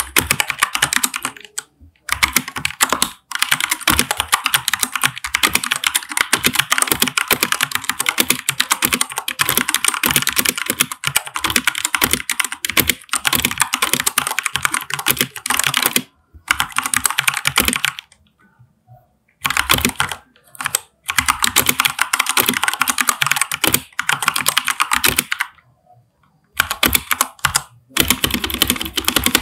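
Typing on a Keychron K4 V2 mechanical keyboard with tactile Gateron Brown switches and ABS keycaps: a fast, continuous patter of keystrokes, broken by several brief pauses.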